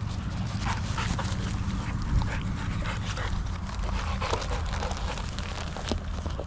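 Two young dogs panting hard after running in to the handler, with a few short clicks and scuffs over a steady low rumble.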